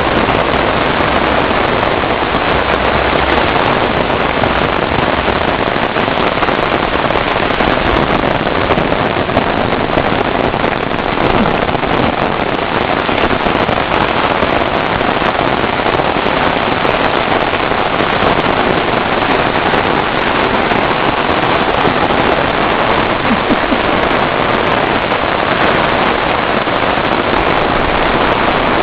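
Heavy, steady downpour of rain on the foliage and on an umbrella held close overhead, a dense crackling hiss with no letup.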